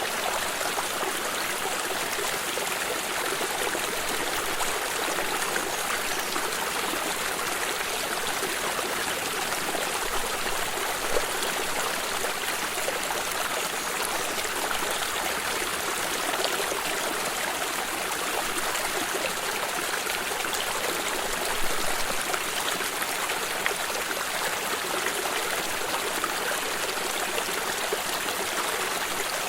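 A water stream flowing steadily over stones, a continuous rushing and babbling with occasional small splashes.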